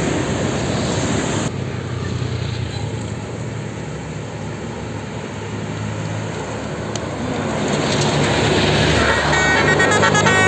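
Road traffic with a heavy engine running, getting louder toward the end; about a second before the end a bus's Basuri telolet musical horn starts a quick melody of stepping notes.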